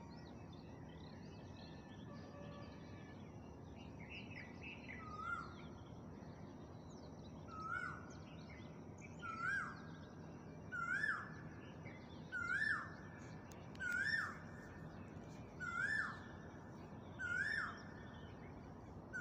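A bird calling over and over: a short rising note repeated about every one and a half seconds, growing louder, with scattered softer chirps before the calls begin. Under it runs a faint steady hiss.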